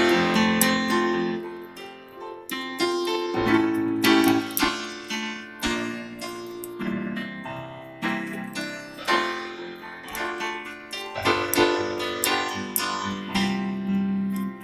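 Yamaha PSR-EW410 portable keyboard playing its piano voice: a song of melody over chords. The notes are struck one after another and die away, with no accompaniment or beats.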